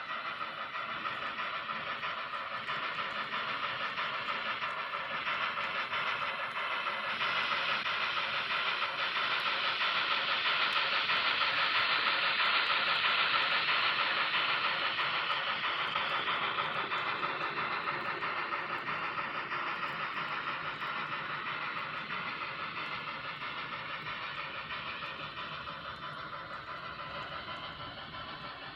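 N scale model freight train running along the track, its rolling and running noise rising to a peak about halfway through and then fading as it passes by.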